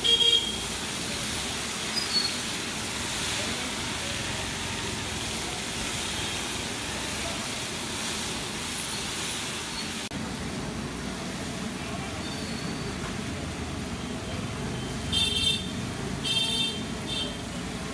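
Steady hiss of ghevar batter frying in hot ghee in metal rings, over a continuous street traffic background, with a few short high-pitched sounds about 15 to 17 seconds in.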